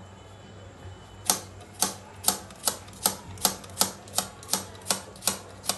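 Kitchen knife slicing a red onion directly on a marble countertop: about a dozen sharp, evenly paced clacks of the blade striking the stone, a little over two a second, starting about a second in.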